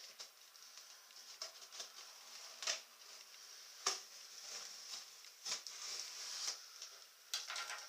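Small knife slitting the packing tape along the sides of a large cardboard box: irregular scratchy slicing strokes with a few sharp knocks and clicks of the cardboard.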